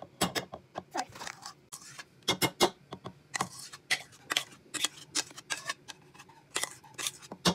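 Metal spoon scraping and knocking against a mixing bowl while scooping out creamed butter: a string of irregular short scrapes and clicks.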